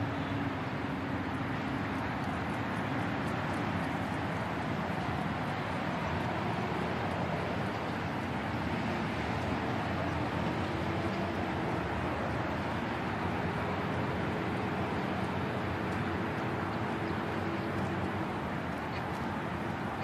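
Urban park ambience dominated by a steady wash of road traffic, with a low engine hum from a vehicle dying away in the first second or so.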